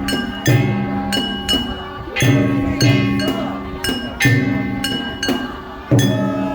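Music with sustained pitched notes over a percussive beat of sharp strikes and metallic clinks, about one strike a second.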